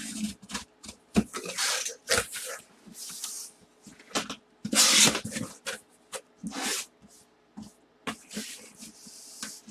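Cardboard box being handled and opened: flaps scraping and rustling in irregular bursts, with a few sharp knocks and a longer, louder scrape about five seconds in.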